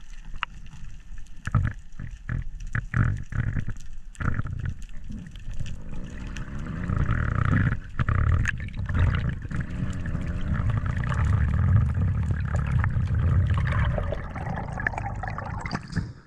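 Water rushing and knocking against an action camera held underwater by a freediving spearfisher: scattered knocks at first, then a steady rush of water as he swims, which cuts off sharply near the end as the camera breaks the surface.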